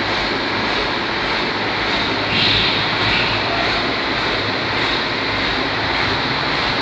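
Heavy cargo truck's diesel engine running steadily close by, a loud even drone echoing in the ferry's enclosed vehicle deck.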